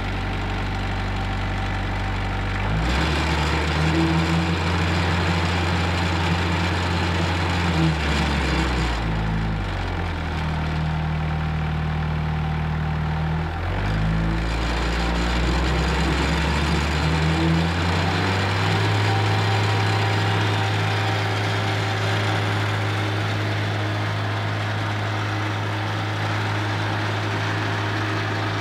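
Kubota 44 horsepower turbo diesel engine on a stump grinder, idling, then revved up about three seconds in. Its speed dips briefly twice while held up, then it drops back to a steady idle for the last third.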